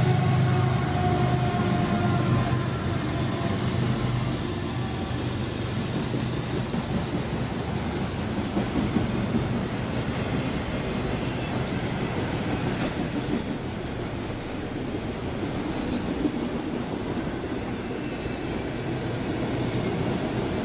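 Freight train passing close by. The diesel engine drone of the lead CitiRail and BNSF locomotives fades over the first few seconds, giving way to the steady rolling noise of autorack cars' wheels on the rails.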